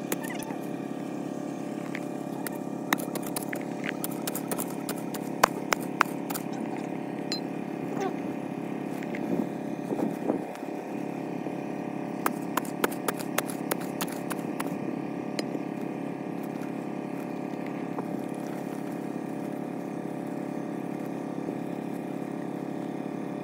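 A small engine running steadily at an even speed, with scattered sharp clicks and knocks: a cluster about 3 to 6 seconds in and another about 12 to 15 seconds in.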